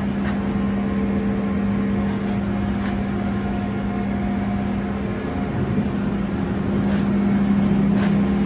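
Mori Seiki Dura Vertical 5100 CNC machining center running with its spindle turning at speed: a steady hum with one strong, even tone. Two faint ticks come near the end.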